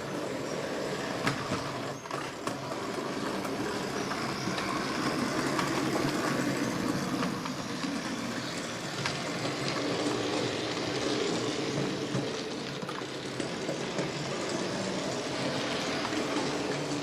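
Model train running on its track: a steady rolling rumble with a few sharp clicks.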